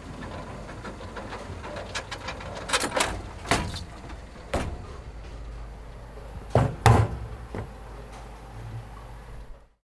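A series of sharp knocks and clacks at irregular intervals over a steady background noise, the loudest two in quick succession past the middle; the sound cuts off suddenly near the end.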